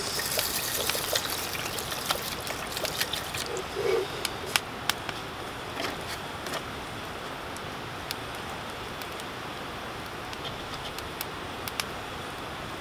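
Water poured into an aluminium mess tin of rice to soak it, a trickling pour loudest in the first second or so. A wood campfire crackles with sharp pops throughout.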